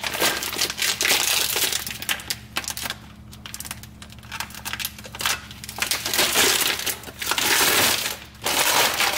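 Clear plastic shrink-wrap crinkling and tearing as it is pulled by hand off a clutch and flywheel assembly, in loud spells with a quieter stretch around three to five seconds in.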